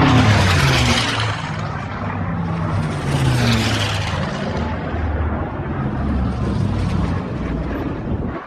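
WWII piston-engine warbirds flying past overhead: a loud propeller drone with a rushing roar, its pitch sliding down as a plane passes in the first second and again about three seconds in.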